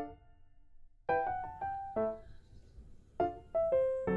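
Background music: a piano playing a light melody in short phrases of struck notes, each ringing and fading.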